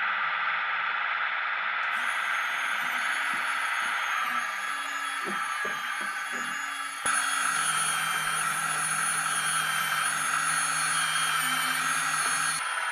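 Steady electric whine of a 1:16 scale RC hydraulic CAT 297D compact track loader's pump and motors, with thinner high-pitched tones that waver. The sound changes abruptly twice, once about two seconds in and again about halfway.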